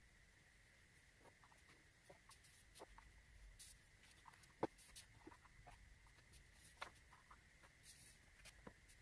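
Near silence with faint, scattered clicks and light taps of small objects being handled, two of them a little louder about four and a half and seven seconds in, over a faint steady high tone.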